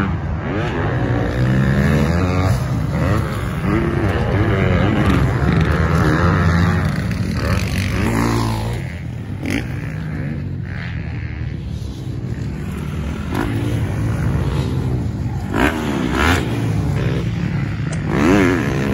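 Motocross dirt bike engines running hard around a dirt track, repeatedly revving up and dropping off as the riders accelerate and shift.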